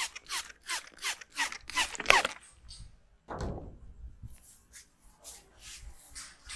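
Hands rubbing briskly over an oiled scalp and hair in a head massage, in regular strokes about three a second that stop about two seconds in. A dull thump follows about a second later, then softer, uneven rubbing.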